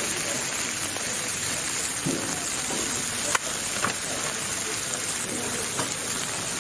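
Steak, chorizo sausages and a fried egg sizzling on a flat-top griddle: a steady hiss, with two sharp clicks a little past halfway.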